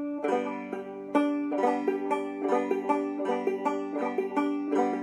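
Banjo played clawhammer style: a steady run of plucked notes struck down onto the strings, with notes ringing on between strikes.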